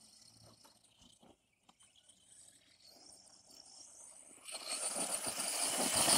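Near silence, then about four and a half seconds in, an Arrma Senton 4x4 RC truck's tyres and motor are heard spinning on loose dirt. The sound grows steadily louder as the truck approaches.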